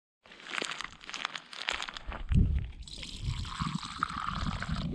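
Plastic wrapper crinkling and crackling in a hand, with a low rumble coming in about halfway through.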